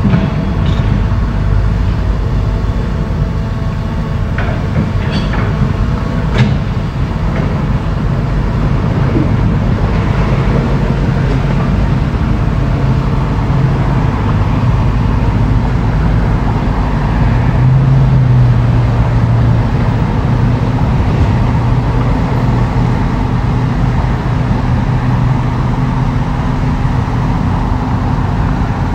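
Heavy diesel construction machinery running steadily under work, with a few sharp metallic knocks in the first seven seconds. The engine grows louder around eighteen seconds in, then holds.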